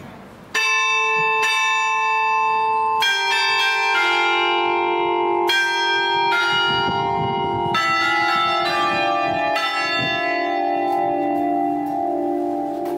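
Church bells in the tower ringing at close range: about a dozen strikes at different pitches, starting suddenly about half a second in, each note ringing on and overlapping the next.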